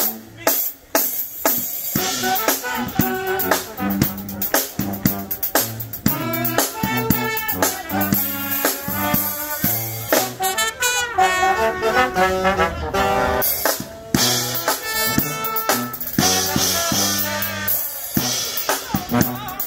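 Live brass band playing: sousaphone bass line, drum kit with snare and cymbal hits, and saxophones, trumpet and trombone playing together, with a short break about a second in.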